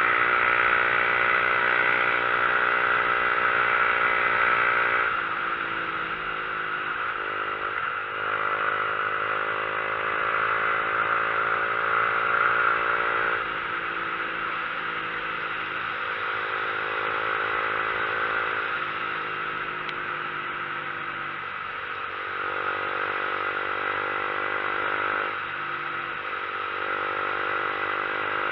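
Motorcycle engine running steadily while riding. Its note drops and picks back up several times as the throttle and gears change.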